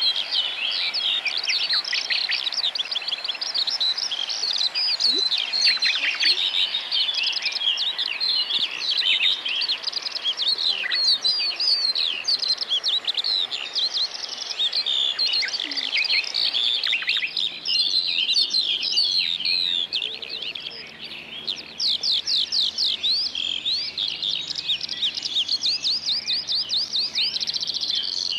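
Dense chorus of songbirds singing, many quick chirps and trills overlapping without a break.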